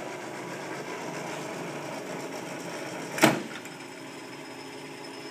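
South Bend lathe running steadily and quietly, driven by its 575-volt motor. A single sharp clunk comes a little past three seconds in, after which it runs slightly quieter.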